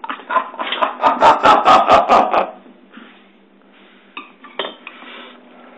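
A quick run of loud knocks and clatter, about six a second for a second and a half, then a few scattered clicks.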